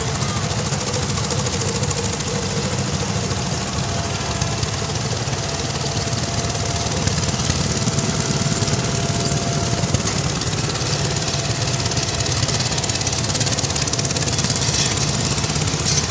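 Engines of several two-wheel hand tractors chugging steadily as they drive past in a line, with a fast, even knock.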